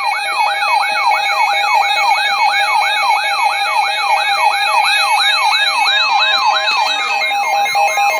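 Electronic emergency-alert siren: a fast yelp sweeping down in pitch about three times a second, layered over steady alarm tones. It is the attention signal ahead of a severe thunderstorm warning broadcast.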